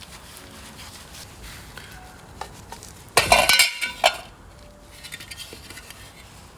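Small metal motorcycle parts being handled and worked on, clinking and knocking, with a loud rough scraping burst of about a second just past the middle.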